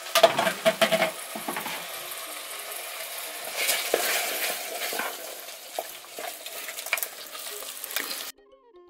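Spoon stirring and scraping in an aluminium pot of cowpea sauce, which sizzles and simmers steadily over a charcoal stove. Clattering knocks come in the first second and then scattered through the stirring. About 8 seconds in the sound cuts off to faint string music.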